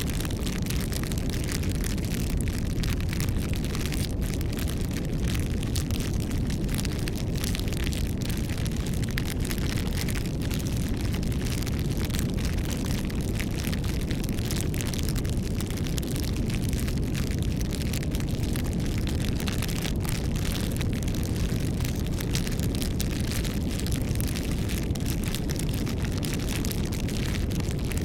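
Campfire burning: a steady low rush of flames with a dense stream of small wood crackles and pops.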